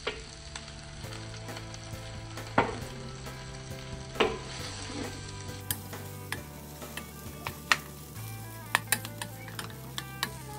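Pork pieces with peppers and onions sizzling in oil in a stainless-steel wok, stirred with a wooden spatula that knocks and scrapes against the pan every second or so.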